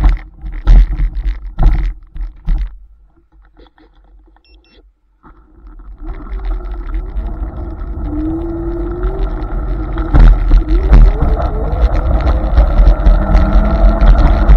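A few loud knocks and thumps at the start, then a Hiboy S2 Pro electric scooter pulling away: its motor whine climbs in pitch as it gathers speed, over a low rumble that grows steadily louder.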